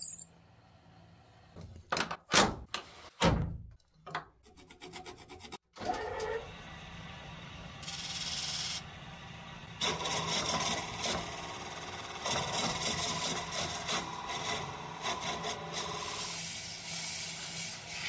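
Metal lathe spinning a wooden workpiece, its motor humming while a tool bit scrapes and shaves the wood in a steady rough rasp. Before the cutting starts there are a few sharp knocks and a quick run of clicks.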